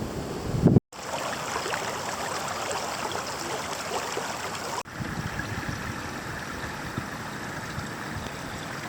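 Creek water running, with the sound cutting out briefly about a second in.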